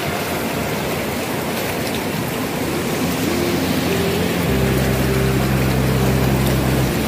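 Rushing river rapids, a steady noise of churning whitewater. Background music comes in about halfway, with low held notes.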